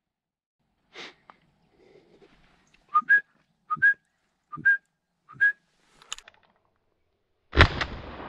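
Four short whistles, each stepping up in pitch, between about three and five and a half seconds in. Near the end comes a single shotgun shot that rings on and fades.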